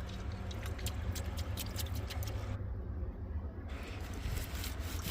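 A muddy glass bottle being handled and rubbed: a quick run of small scrapes and clicks that pauses briefly just past the middle, over a steady low rumble.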